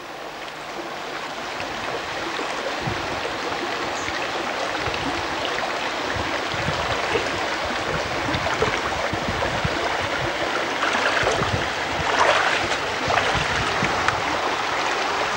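Legs wading through a shallow rocky stream, with irregular splashes and sloshing over the steady rush of flowing water. The splashing is loudest about twelve seconds in.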